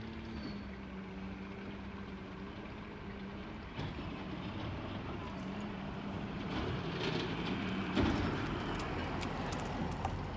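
Automated side-loader garbage truck running, its engine and hydraulics holding a steady hum while the arm lifts a cart. A sharp bang about eight seconds in, then rattling and clatter as the cart is shaken out over the hopper.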